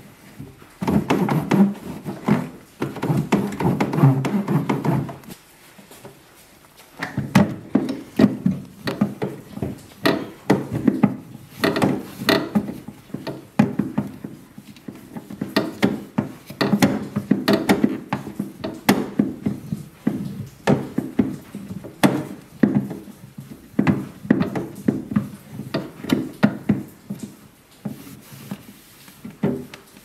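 A microfibre towel rubbing and wiping over the plastic inner walls and shelf of a refrigerator, in irregular hard strokes with small knocks against the plastic. There is a short quieter pause about five seconds in.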